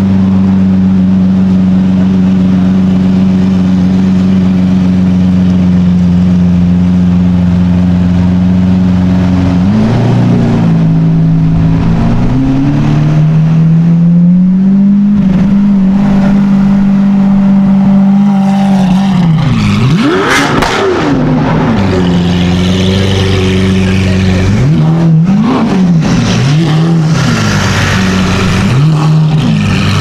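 Lamborghini Aventador SVJ's V12 engine running steadily at low revs. About two-thirds through it is given a sharp rev blip that rises and falls in pitch, and several shorter throttle blips follow near the end.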